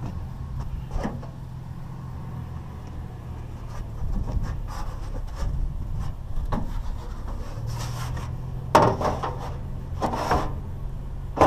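Metal rain-gutter pieces scraping and clattering against scrap metal in a pickup bed, loudest twice, about nine and ten seconds in, over the steady low hum of an idling pickup truck.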